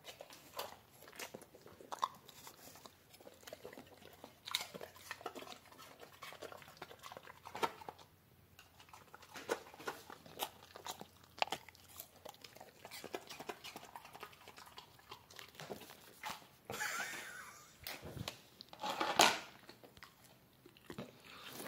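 Dog chewing on a chew, irregular crunching, clicking bites at an uneven pace. Near the end come two longer, louder noisy stretches.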